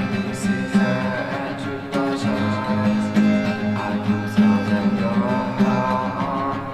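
Music: a slow lo-fi song with a strummed and picked acoustic guitar over sustained low tones.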